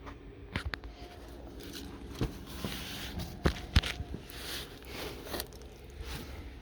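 Footsteps and handling noise: scattered sharp clicks and knocks with a few brief scrapes, over a steady low hum.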